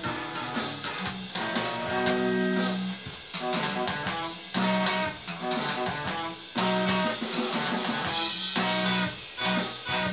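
Electric bass guitar fingerpicked, playing a melodic line of plucked notes, some of them held, with short breaks between phrases.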